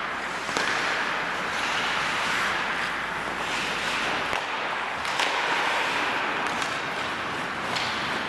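Ice hockey skates scraping and carving on the rink ice in waves, with a few sharp clacks of sticks on the puck.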